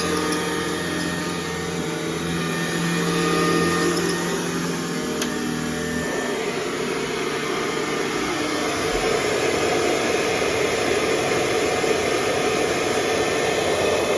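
Hoover Model 305 vacuum cleaner running, its motor giving a steady hum with a whine. About six seconds in, the steady tone gives way to a rougher, even rushing sound.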